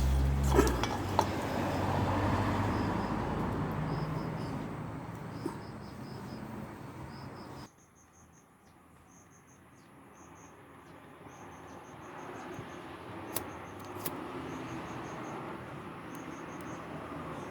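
Pine fatwood fire starter burning with a steady rushing noise and a few sharp crackles. Crickets chirp in short repeated pulses throughout. The fire noise drops out abruptly about eight seconds in and then builds back up.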